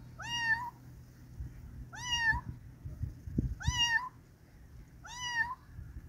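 Kitten meowing four times, about one and a half seconds apart, each a short high-pitched mew that rises in pitch and then holds.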